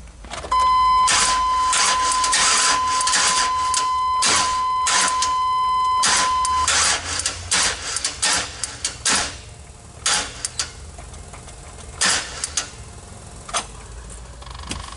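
Repeated clicks, clinks and knocks of hand tools and small metal parts being handled at a V8's distributor. For about the first six seconds a steady high beep-like tone sounds alongside them, then stops.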